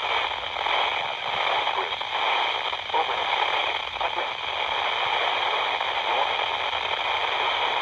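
Steady radio static hiss from a receiver tuned to a NOAA Weather Radio frequency, fluctuating slightly in strength.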